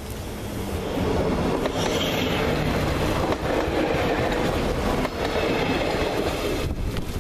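A BDŽ Siemens Desiro diesel multiple unit passes close by at low speed. Its engine runs under a steady rumble from the wheels, with a few clicks as the wheels cross rail joints. The sound grows louder about a second in and then holds.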